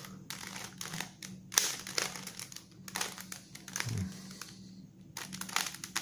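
Plastic layers of a bandaged 3x3 Rubik's cube being turned by hand: a run of quick clacks and scrapes as the faces rotate.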